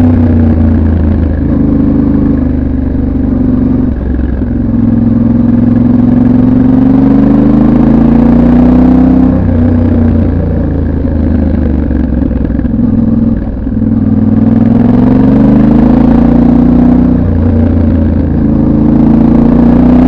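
Yamaha Ténéré 700 World Raid's parallel-twin engine on the stock exhaust, heard from on board while riding. The revs climb and drop again and again, with several short breaks as the rider changes gear or closes the throttle.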